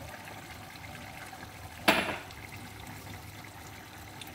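Steady low hiss of a gas burner heating a pot of water for boiling rice, with one sharp clink a little under two seconds in.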